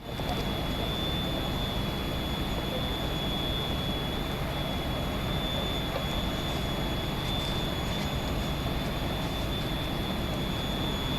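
Steady mechanical drone with a constant high-pitched whine.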